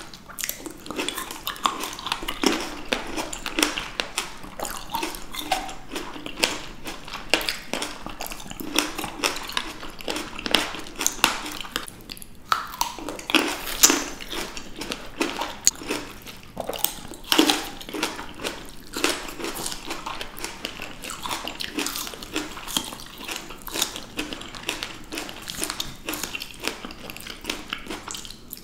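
Close-miked eating of fresh fruit: crisp bites into green grapes and strawberries, with wet, juicy chewing. The bites and chews come several times a second.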